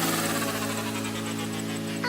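Background music: a held chord slowly fading away.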